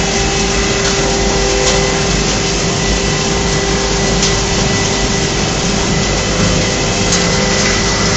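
Sawdust airflow dryer running: a loud, steady rush of machine noise from its blower and ducts, with a few steady whining tones over it.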